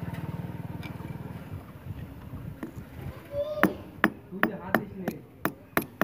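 Ball-peen hammer peening a rivet on a flat steel bar laid on a steel block: about eight sharp blows, roughly three a second, starting about three and a half seconds in. A low rattling hum fades out over the first second and a half.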